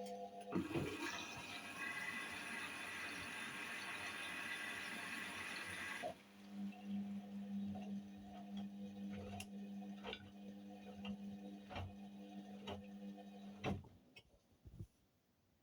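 Indesit WIUL83 washing machine taking in water at the start of a wash: water rushes in over a steady hum for about six seconds, then the hum goes on alone with scattered clicks and stops with a knock near the end.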